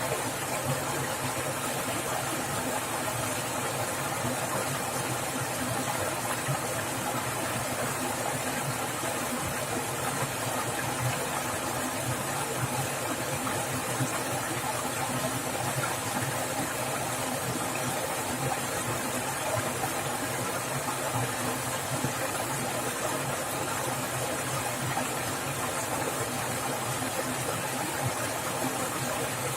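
Fast-flowing stream water rushing and splashing over rocks, a steady, unbroken wash of sound.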